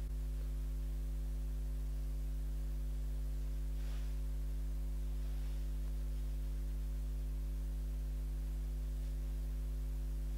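Steady electrical mains hum, a low buzz with several even overtones, and a faint soft rustle about four seconds in.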